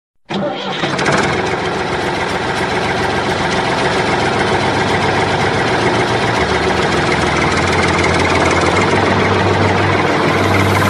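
Engine idling steadily, starting abruptly just after the start, with a deep low drone that grows stronger from about six and a half seconds in.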